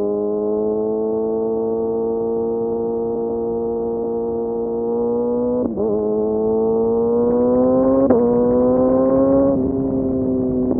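Kawasaki Ninja ZX-6R inline-four engine through an M4 exhaust with no dB killer, pulling under throttle with its note slowly rising. The note breaks briefly about six seconds in, and there is a sharp crack about two seconds later. The revs then drop near the end as the throttle is rolled off.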